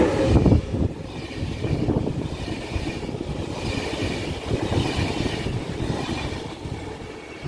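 České dráhy passenger train with InterJet coaches passing close by: a steady rumble of wheels on the rails, loudest just as it begins.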